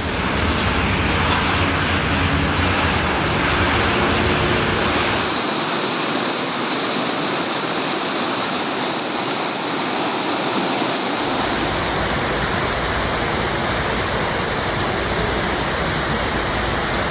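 Loud, steady rush of storm water. It changes abruptly about five seconds in, when the deep rumble drops out, and again about eleven seconds in, when the rumble returns.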